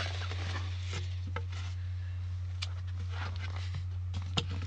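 A cardboard subscription crate being opened by hand: scattered rustling and scraping with a few sharp clicks, over a steady low hum.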